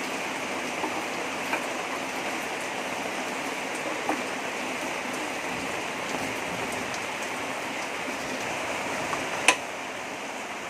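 Heavy rain falling steadily, with a few faint knocks and one sharp click near the end.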